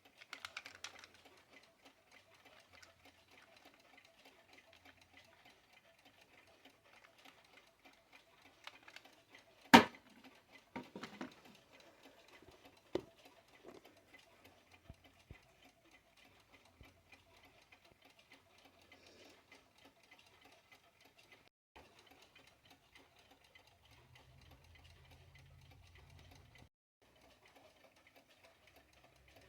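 Westclox quartz travel alarm clock ticking faintly and steadily. A sharp click about ten seconds in is the loudest sound, with a few smaller knocks around it, and a brief low hum comes near the end.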